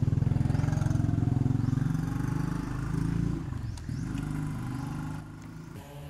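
A small engine running, a steady low pulsing note that shifts in pitch about three to four seconds in and drops away about five seconds in.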